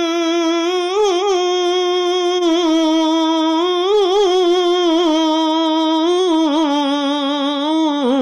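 Unaccompanied naat recitation: a single voice holds one long, melismatic note with wavering ornaments, stepping down to a lower pitch near the end.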